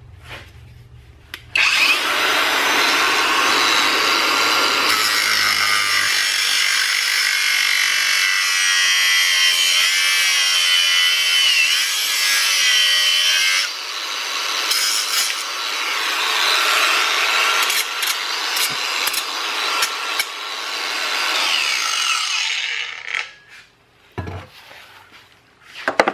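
Abeden 18V brushless cordless angle grinder with a thin cut-off wheel cutting into a small piece of steel: a loud, harsh grinding with a wavering motor whine. It starts suddenly, eases briefly about halfway, then runs on until it stops near the end. The motor seems short of RPM next to a corded grinder.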